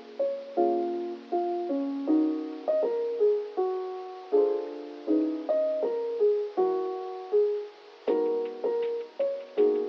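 Background music: a melody of separate struck notes, each fading away, about two notes a second, with light ticking percussion joining near the end.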